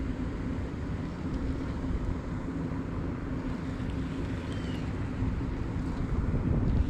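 Wind rumbling on the microphone over a steady low hum, while a baitcasting reel is cranked to retrieve the lure.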